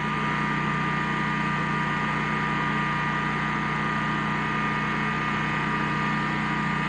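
Westinghouse WGen20000 portable generator's 999 cc V-twin OHV engine running steadily with eco mode off, an even engine drone with a constant hum.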